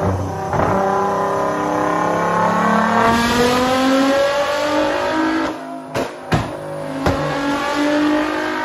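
Nissan GT-R R35 Nismo's twin-turbo 3.8-litre V6, with its modified stock exhaust, pulling on a chassis dyno, the pitch climbing steadily for about five seconds. About five and a half seconds in there is a short dip where the pitch falls, with two sharp cracks from the exhaust, and then it climbs again.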